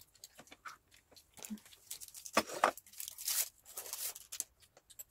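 Children slurping instant cup noodles, in several short noisy bursts, with small clicks of chopsticks in the paper cups.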